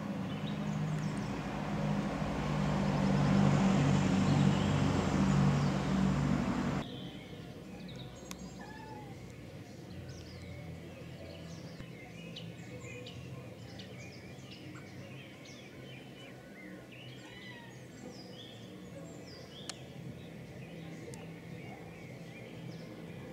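A loud, steady motor-vehicle noise with a low hum, swelling and then cutting off abruptly about seven seconds in. After that, garden birds sing: many short chirps and calls from several birds over a soft, steady background.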